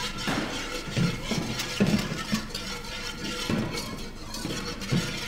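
Wire balloon whisk stirring and scraping around a stainless steel pan in uneven strokes, about two a second, the wires clinking against the metal as milk is beaten into a flour roux for white sauce to keep it from going lumpy.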